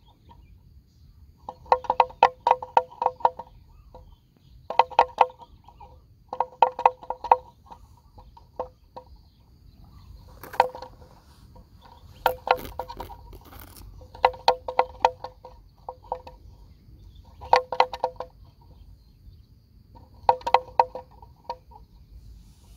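A clanking bell, struck in quick bursts of several strikes every two or three seconds.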